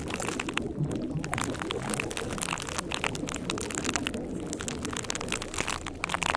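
Steady rain: a dense, irregular patter of many small drops over a low rumble.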